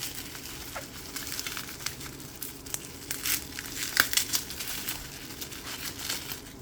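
Bubble wrap being crinkled, crushed and torn open by hand to free a wrapped figurine, a steady run of crackles with one sharp click about four seconds in.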